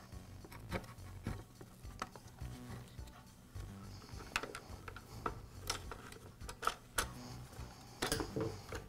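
Scattered light clicks and knocks of hard plastic parts being handled as the Echo PB-255LN leaf blower's plastic handle is fitted onto the housing and pressed into place.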